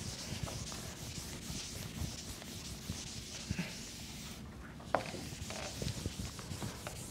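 Felt chalkboard eraser rubbing across a blackboard, with one sharp knock about five seconds in.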